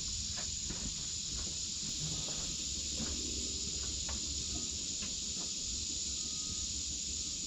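Steady high-pitched chorus of insects, with a few faint small clicks of handling.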